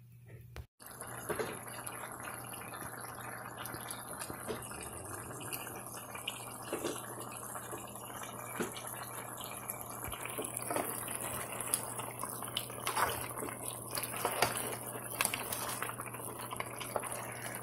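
A pot of curry goat stew simmering: a steady hiss with many small scattered bubbling pops.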